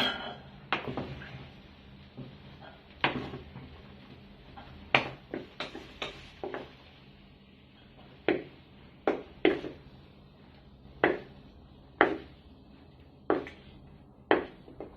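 A utensil knocking and scraping against a rice cooker's inner pot while cooked rice that has caught slightly on the bottom is dished out: a string of sharp, irregular clinks and knocks.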